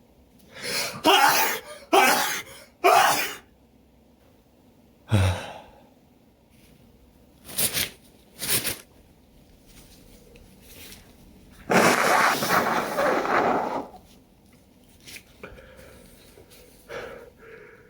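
A person's allergy sneezing fit: three loud sneezes in quick succession in the first few seconds, further short bursts through the middle, and a longer noisy burst of about two seconds later on. Hay-fever sneezing, which the sneezer puts down to a pollen allergy.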